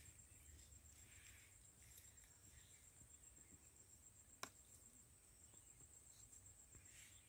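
Near silence, with a faint steady high chirring, typical of a cricket, and a single sharp click about four and a half seconds in.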